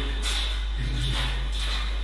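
Footsteps shuffling on a hard floor, a step every half second or so, over a steady low hum.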